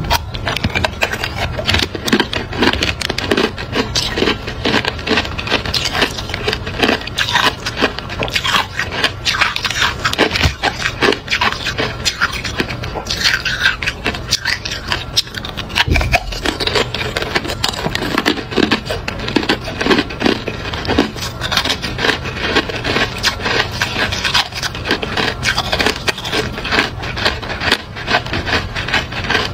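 Hard clear ice cubes being bitten and chewed up close: a dense, continuous stream of sharp cracks and crunches.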